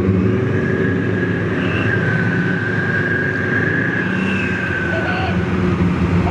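Several Type 74 tanks driving slowly, their air-cooled two-stroke V10 diesel engines running with a steady low rumble. A high steady whine holds from about half a second in until about five seconds in.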